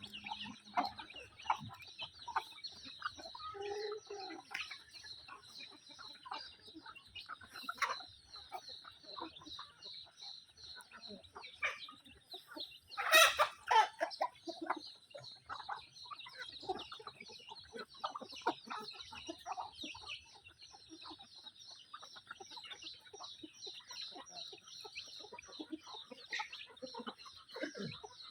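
A flock of chickens calling continuously, a dense chatter of short high peeps and clucks, with one louder call about halfway through.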